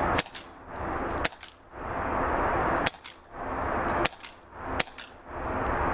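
Taurus airsoft pistol firing 6 mm plastic BBs at a wooden target: about five sharp, light pops at uneven intervals, some followed closely by a fainter click.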